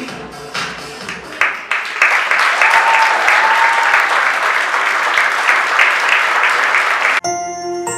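Rhythmic dance music ends about two seconds in and a theatre audience breaks into applause. The clapping cuts off suddenly near the end.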